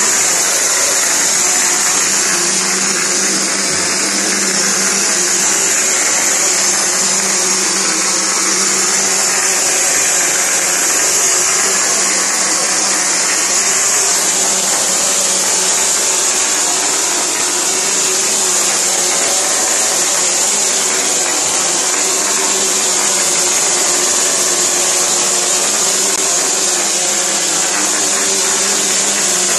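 Cement plaster spray machine running: the spray gun gives a steady, loud hiss of compressed air as mortar is sprayed onto a wall, with a steady low machine hum underneath.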